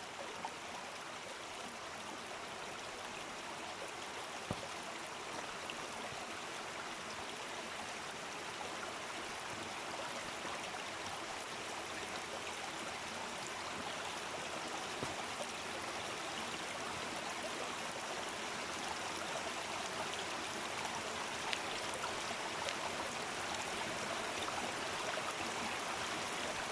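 Waterfall and stream water rushing steadily, a little louder toward the end, with a few faint knocks.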